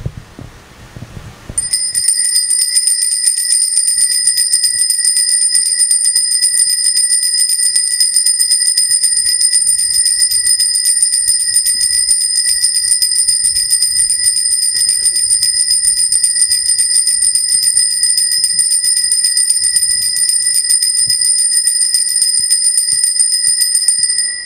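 Altar bell rung rapidly and without a break for about 22 seconds, starting a second and a half in and stopping just before the end: the bell rung during benediction, as the priest blesses the people with the Blessed Sacrament in the monstrance.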